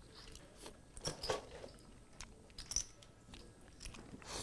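Faint, irregular clicks of poker chips being handled at the table, a few separate taps a second or so apart.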